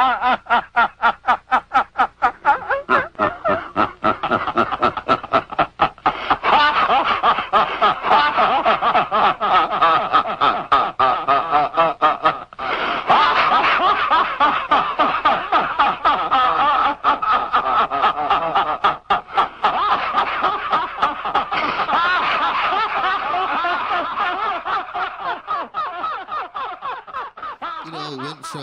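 A group of people laughing together without pause as a laughing meditation: rapid ha-ha pulses from several voices overlapping, dying down toward the end.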